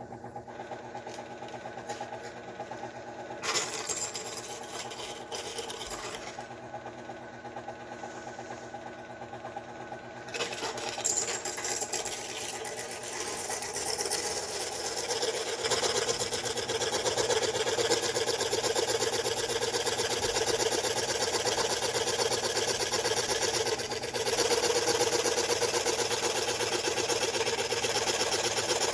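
Scroll saw motor running, its reciprocating blade chattering at a fast even rate. About ten seconds in the sound grows louder and harsher as the fine-tooth junior hacksaw blade cuts through the protoboard circuit board.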